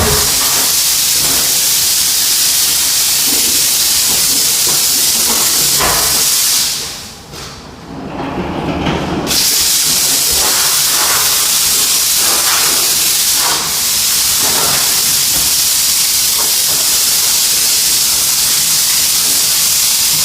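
Steam cleaner nozzle hissing with a steady high jet of steam. It cuts off for a couple of seconds about a third of the way through, then comes back on.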